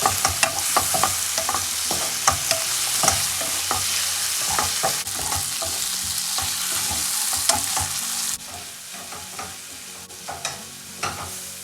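Strips of chicken sizzling in olive oil in a pan, with frequent clicks and scrapes of a utensil stirring them. The sizzle drops noticeably quieter about eight seconds in.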